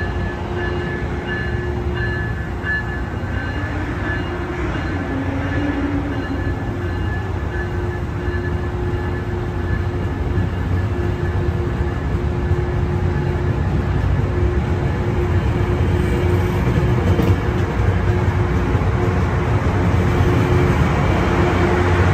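Tri-Rail double-deck commuter train at the platform, its diesel locomotive running with a steady low hum and a whine above it. The sound grows louder through the second half as the train starts to move off.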